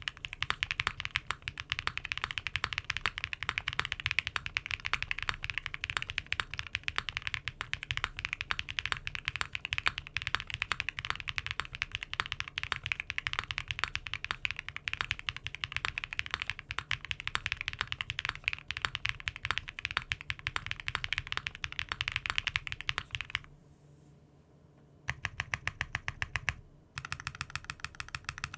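Fast, continuous typing on a mechanical keyboard fitted with Cherry-profile keycaps: a dense run of key clacks. It stops for a second or two near the end, then resumes in two short runs.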